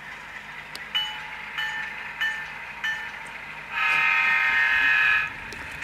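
Tsunami sound decoders in model diesel locomotives: the bell strikes four times, then the horn sounds one long chord blast of about a second and a half over a faint diesel engine sound. The owner thinks the horn sound on the RSD-4/5 needs changing.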